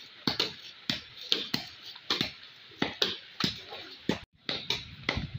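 Bolo knife striking and shaving thin cane strips by hand: a dozen or so sharp chopping clicks at an uneven pace, about two to three a second.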